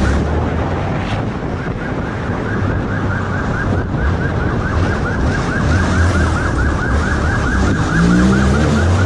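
Police motorcycle siren in a fast yelp, quick rising sweeps about four a second, over the motorcycle's running engine and wind noise. The engine revs up near the end.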